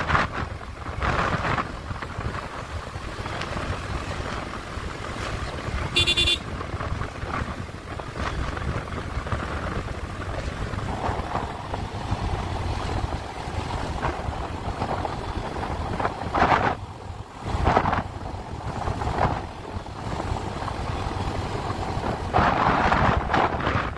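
A moving road vehicle with steady road and wind rumble, and a brief horn toot about six seconds in.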